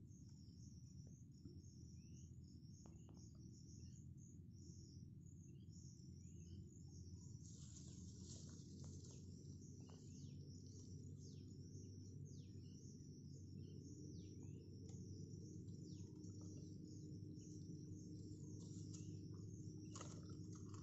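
Faint, steady insect chirping, like crickets, in a high pulsing trill, joined about a third of the way in by many quick, sharp falling chirps, over a low steady rumble.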